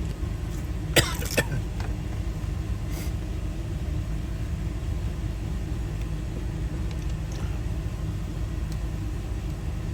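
Two sharp metallic clicks about a second in, from small door-lock parts being handled and fitted, over a steady low rumble.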